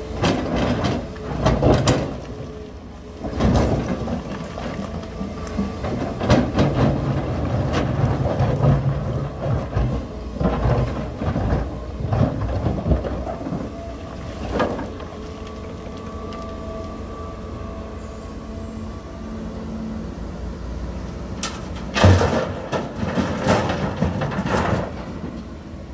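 John Deere 350G hydraulic excavator's diesel engine running steadily under load while its steel bucket scrapes, crunches and knocks through broken rock. A burst of louder rock crashes comes near the end.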